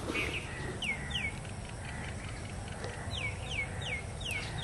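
A bird calling with short downward-slurred chirps: two about a second in, then a quick run of five evenly spaced ones near the end.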